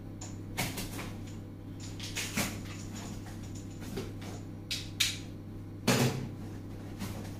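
Cardboard shipping box being opened and handled, with the end flap pulled open and an inner box slid out. It gives a string of short scrapes, crinkles and knocks, the loudest about six seconds in, over a steady low hum.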